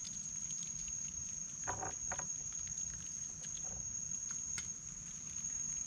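Steady high-pitched insect drone over a low background rumble, with a few faint short sounds about two seconds in.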